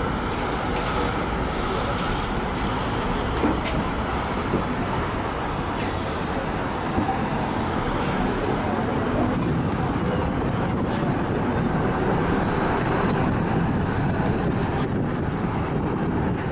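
Running noise heard from inside a moving tram: a steady rumble of wheels on rails and the traction motor, with a few light knocks.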